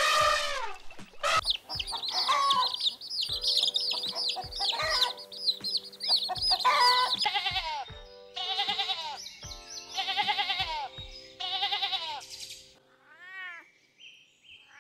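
A young goat bleating four or five times, each a wavering cry about a second long, over background music. Before that, a dense run of high, warbling chirps. Near the end come a cat's faint meows.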